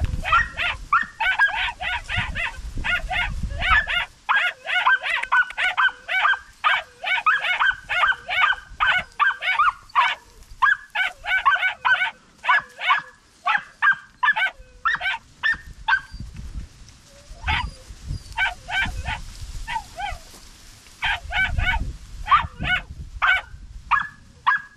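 Young podenco hounds giving tongue while chasing a rabbit through the brush: rapid high yelping barks, several a second, almost continuous at first and more broken up in the second half.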